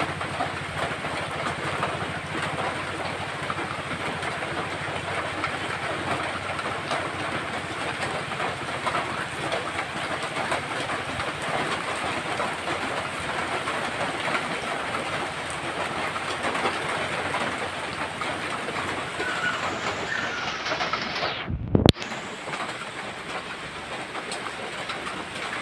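Heavy rain falling on a wet road and roadside vegetation: a steady, dense patter of drops. About three-quarters of the way through there is a brief loud knock and a momentary break in the sound.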